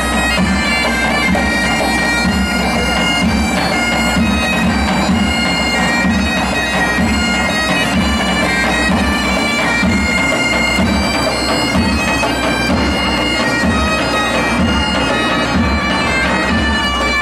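Bagpipes playing a tune over their steady drone.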